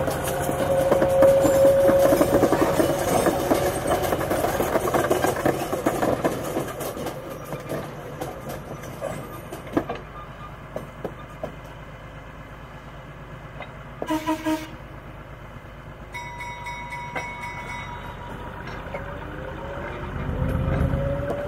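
A 1948 GE 25-ton diesel switcher running and moving along the track with a coupled steam locomotive: a steady engine tone with clattering wheels and running gear, loud at first and then fading as it draws away. About two-thirds of the way through a short horn toot sounds, and near the end the engine grows louder again.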